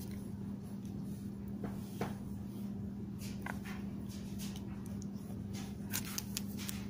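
Pencil drawing on notebook paper: a few faint scratches and light taps over a steady low hum.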